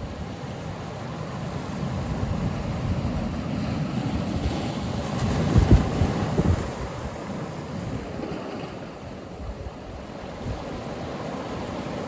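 Ocean surf breaking on a shore of rough black lava boulders: a steady wash of water that swells to its loudest about halfway through as a wave crashes among the rocks, then eases back.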